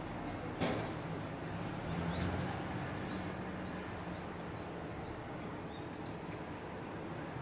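Steady rumble of city street traffic, swelling as a vehicle passes about two seconds in, with a single sharp knock just over half a second in. Small birds chirp briefly a few times over the traffic.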